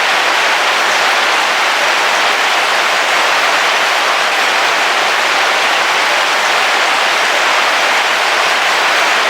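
Heavy rain falling on a car's roof, heard from inside the car: a steady, dense hiss of drops without a break.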